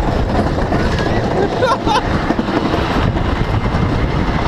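Wooden roller coaster train running along its wooden track at speed: a loud, steady rumble and rush of wind noise. Short rider yells come about one and a half seconds in.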